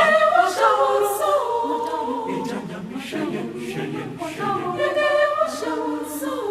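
A choir singing unaccompanied in Twi, with long held notes that glide between pitches.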